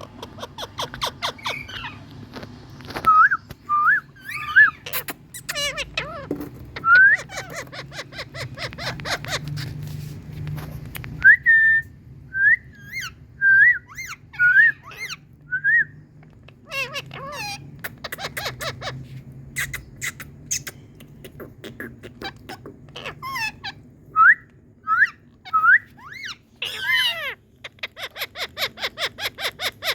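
Indian ringneck parakeets calling: runs of short, rising whistled notes mixed with quick clicking chatter and a few harsher screeches.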